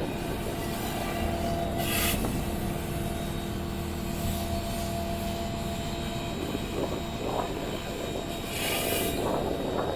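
Electric pressure washer running steadily with a Ryobi surface cleaner spraying water onto concrete: a constant motor-and-pump hum under the hiss of the spray, with a brief louder hiss about two seconds in and again near the end.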